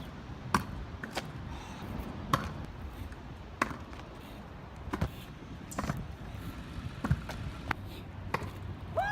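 A series of separate sharp knocks, about a dozen at uneven spacing, some with a short falling ring after the hit, over a low background rumble.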